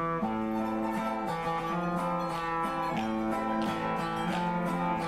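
Live acoustic string music: a guitar and a smaller, higher-pitched strummed string instrument playing a tune together with steady strumming.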